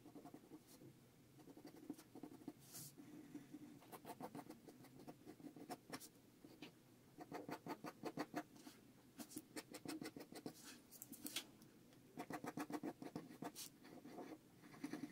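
Faint scratching of a mechanical pencil's lead on paper while sketching: bursts of quick, short back-and-forth strokes with brief pauses between them.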